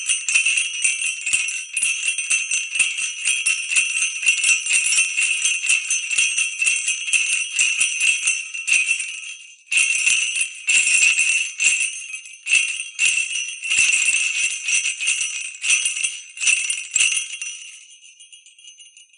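Jingle bells shaken rapidly and continuously, fading out a little before halfway. A second bout of shaking starts after a short gap, breaks into separate shakes, and fades away near the end.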